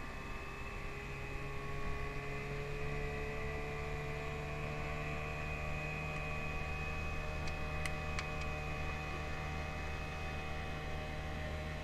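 Boat engine running steadily, with a low hum under several steady tones, one of which creeps up slightly in pitch. A few faint ticks come past the middle.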